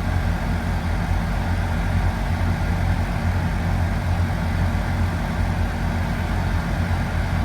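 Steady, low engine rumble of heavy machinery running without change.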